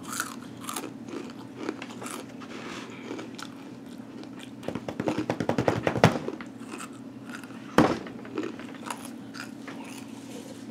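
Crunching and chewing of Takis Fuego rolled corn tortilla chips, with scattered crisp crunches and a dense run of rapid crunches about halfway through. A single sharp knock follows a couple of seconds later.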